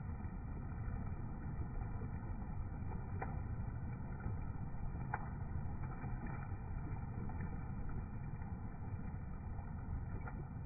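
Steady low rush of river water pouring over and below a weir, with a few faint ticks about three and five seconds in.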